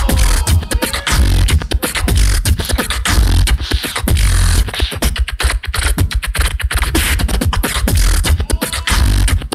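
A solo beatboxer performing: a fast, dense stream of vocal drum strokes over a heavy, deep bass, with short pitched vocal slides near the start and near the end.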